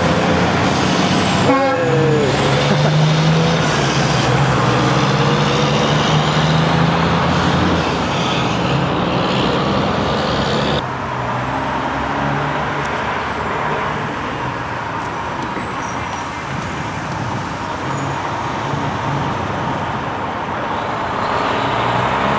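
Diesel semi-truck engines running as tractor-trailers pull away, with a short squeal about a second and a half in. The engine drone holds steady, drops off suddenly about eleven seconds in, and grows louder again near the end as another truck approaches.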